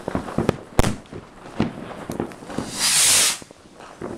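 Fireworks going off: several sharp bangs and cracks, the loudest just under a second in. About three seconds in, a rocket launches with a short, loud whooshing hiss.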